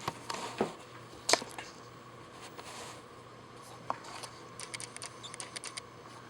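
Scattered light clicks and handling noises, the loudest about a second in and a small run of quick ticks near the end, over a faint steady hum.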